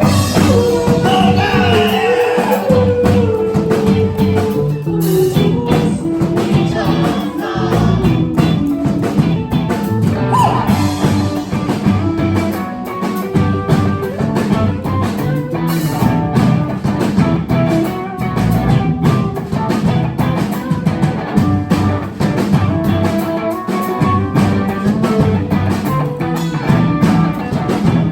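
Live indie rock band playing, with electric guitar, bass and drum kit.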